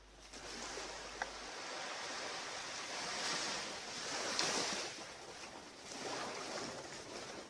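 Ocean surf washing onto a beach: a steady hiss of waves that swells louder about halfway through and again near the end.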